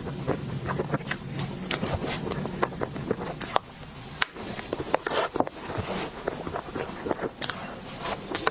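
Close-miked eating sounds of a dessert being chewed: irregular clicks and crackles in quick succession.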